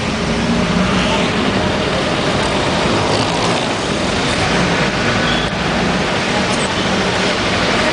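A moving jeepney's engine running under steady road and traffic noise, heard from on board.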